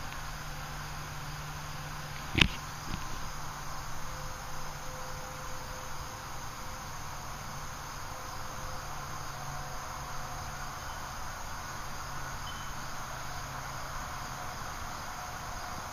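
Steady outdoor background hiss, with a single sharp knock about two and a half seconds in.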